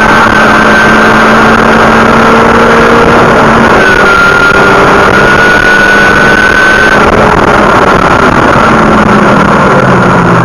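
Loud in-cabin sound of a car engine running hard at track speed, with wind and road noise. The engine pitch climbs for a few seconds midway, then drops, and falls again near the end as the car slows.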